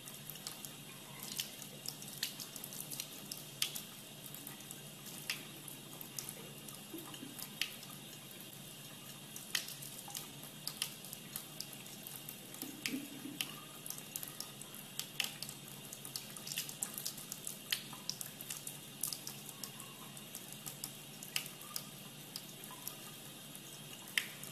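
A thin stream of water running from a faucet into a sink: a steady trickle with irregular sharp splashes of drops.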